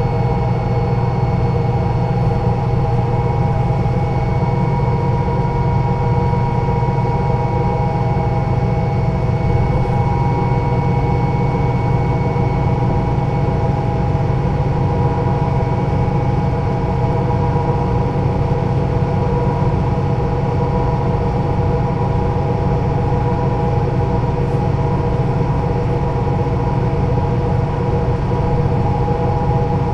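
MAN NL 223 city bus's six-cylinder diesel engine and drivetrain running at a steady, unchanging pitch, with a thin steady whine above the engine note.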